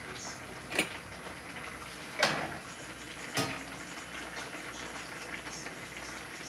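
Three sharp clanks of a pan lid and a cooking utensil against the pan, the middle one loudest, over a steady low sizzle of steak, onions and peppers cooking down in the pan.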